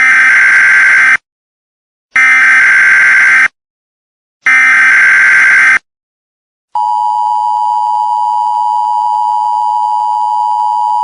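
Emergency Alert System tones: three identical bursts of SAME header data tones, each a buzzy warble a little over a second long with about a second of silence between them. About seven seconds in, the steady two-tone EAS attention signal starts.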